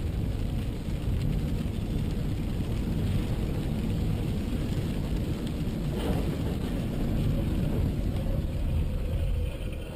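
Steady road and engine noise inside a car driving through heavy rain on a wet highway, with rain and tyre hiss. A short sharp knock comes about six seconds in.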